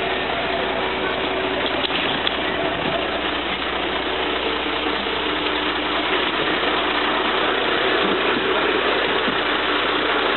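Fire truck's engine idling steadily.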